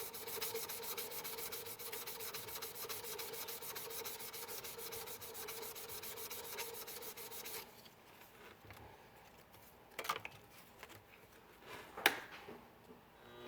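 Sandpaper rubbing on an acrylic pen blank spinning on a WEN lathe: a steady rasp with a fast even pulse and a steady hum. The sanding stops a little past halfway, leaving quiet broken by two sharp clicks.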